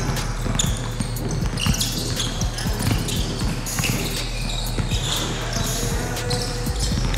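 Basketball game on an indoor hardwood court: the ball bouncing with repeated short thumps, sneakers squeaking on the floor, and players' voices, over a steady low hum.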